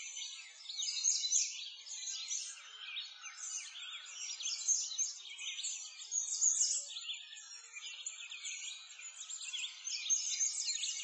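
A dense chorus of many small birds chirping and twittering at once, quick high calls overlapping without a break.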